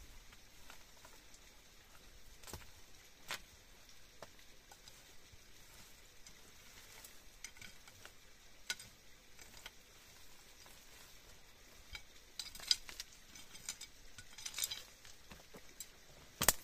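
Steak sizzling on a hot stone, a faint steady hiss with scattered sharp crackles and ticks that bunch up near the end.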